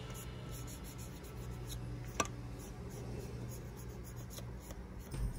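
Cloth rubbing over the plastic fuselage of a small scale model aircraft: a soft, scratchy wiping, with one sharp click about two seconds in.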